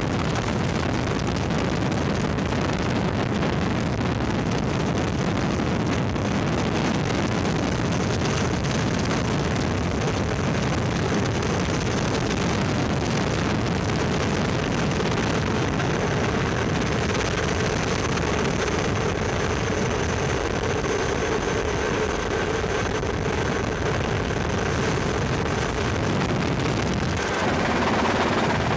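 Helicopter cabin noise in flight: a steady rush of rotor and turbine. A faint high whine runs through the middle stretch, and the loudness rises slightly near the end.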